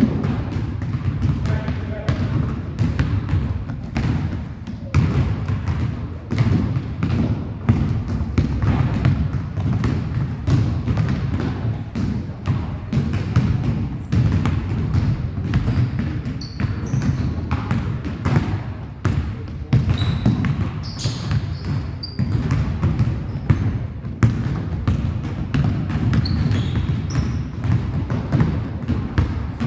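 Several basketballs being dribbled on a hardwood gym floor: an uneven, overlapping run of bounces in a large gymnasium. Sneakers give a few short high squeaks in the second half.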